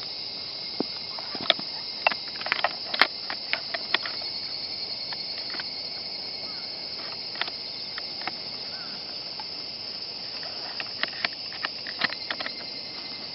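Sharp clicks and knocks of the polymer and metal parts of a WE G39C (G36C-style) gas blowback airsoft rifle being handled and fitted together, in clusters near the start and near the end. A steady high chirring of insects runs underneath.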